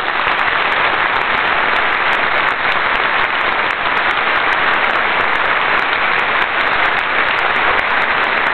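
Audience applauding steadily, a dense, even sound of many hands clapping at once.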